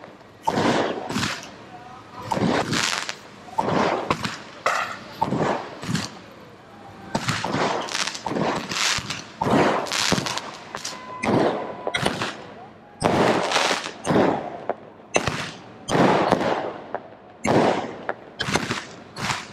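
Multi-shot firework cake firing a long run of sharp bangs, about one to two a second, each with a short echoing tail.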